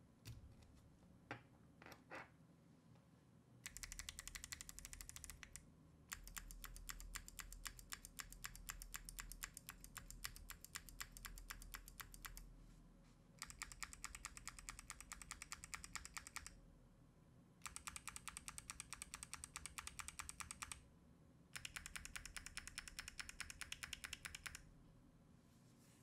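Mechanical keyboard with clicky Kailh Box Jade switches on an aluminum plate, its keys pressed rapidly in five runs of quick, sharp clicks lasting a few seconds each. It sounds quiet and muted from the distant microphone. A few faint knocks come in the first couple of seconds.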